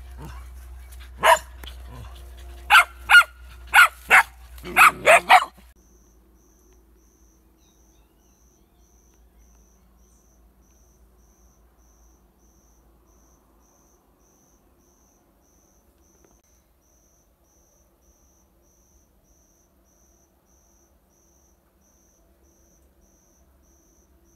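A dog barking sharply, about eight barks in the first five seconds, then it stops. After that only a faint insect chirp remains, a high pulse repeating a little over twice a second.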